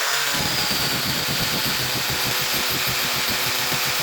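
Electric angle grinder running steadily at full speed on stainless steel pipe work.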